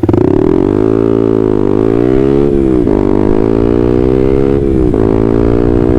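Honda CB150R's single-cylinder engine, breathing through an aftermarket WRX GP6 racing silencer and stainless header, pulling hard from a standing start. The exhaust note climbs steadily in pitch, drops briefly at each of three upshifts (near two seconds, just before three seconds and about five seconds in), and climbs more slowly in each higher gear.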